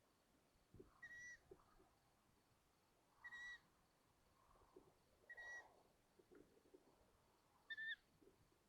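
Long-eared owl chicks giving their high, squeaky whistled begging calls, four short calls about two seconds apart, with faint scuffling and taps in the nest.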